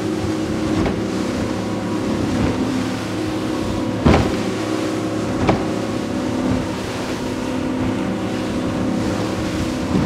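Robalo 246 Cayman bay boat running at speed through a short chop: a steady outboard engine drone under rushing water and spray, with the hull slapping down on waves a few times, hardest about four seconds in.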